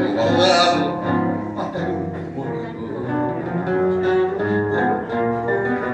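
Two acoustic guitars playing a live song accompaniment, moving through a run of notes, some of them held.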